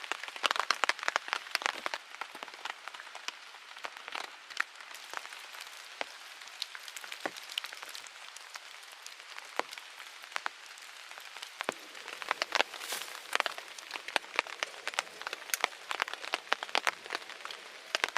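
Wood fire crackling, with irregular sharp pops and snaps over a faint hiss. The pops come thickly at the start, thin out, then grow busy again about twelve seconds in.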